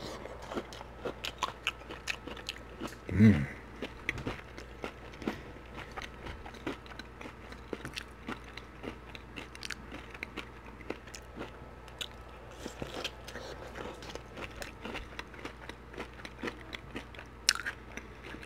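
Chewing and crunching a bite of fried halibut with a Flamin' Hot Cheetos crust: a steady run of crisp crunches and clicks, with a brief hummed "mm" about three seconds in.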